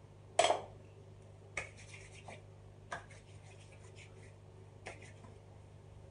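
Hands rubbing pomade between the palms and working it into the hair. There is a loud, short swish about half a second in, then a few brief scratchy rubs.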